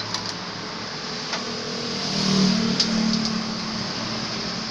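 An engine running steadily, growing louder about two seconds in and easing off again.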